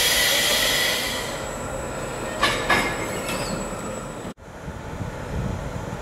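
Electric passenger train at a station platform: a loud high hiss with a faint whine for about a second and a half, then two sharp clunks in quick succession. About four seconds in, the sound breaks off abruptly and gives way to quieter station background hum.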